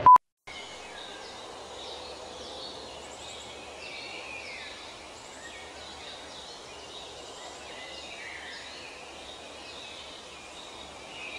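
A short, loud beep at the very start, then steady outdoor forest ambience: a soft hiss with faint bird chirps and whistles.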